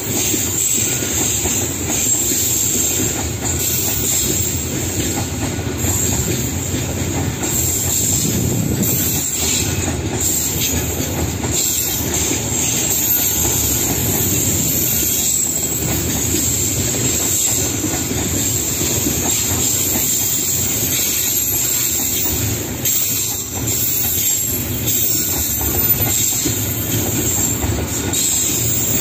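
Container freight train of flat wagons rolling past at close range: a steady rumble of steel wheels on the rails, with irregular clacks as the wheels pass over rail joints and a steady high-pitched hiss over the top.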